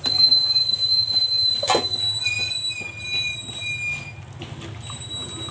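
Metal ladle stirring in a stainless steel pot of mung bean soup, scraping the pot with a steady high-pitched squeal. A second, lower squeal joins for a moment, and a single knock comes about two seconds in.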